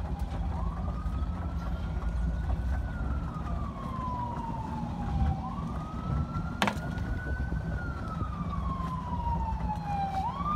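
Emergency vehicle siren in a slow wail: a single tone that rises over about two seconds and falls over about two and a half, going round twice and starting to rise again at the end. A sharp click sounds about two-thirds of the way in.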